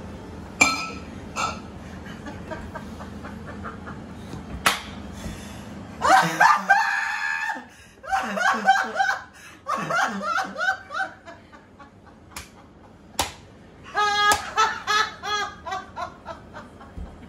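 Hearty laughter in three long bursts, the first about six seconds in, with a few sharp knocks before and between them.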